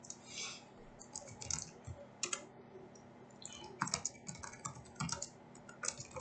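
Typing on a computer keyboard: faint, irregular keystrokes in quick clusters.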